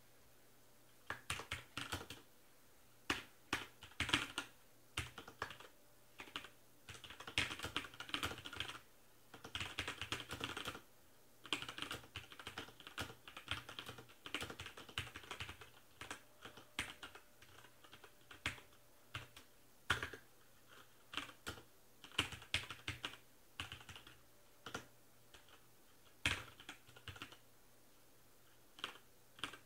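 Ozone Strike mechanical keyboard being typed on at regular speed: quick runs of sharp key clicks in bursts, with short pauses between words and phrases. The typing starts about a second in.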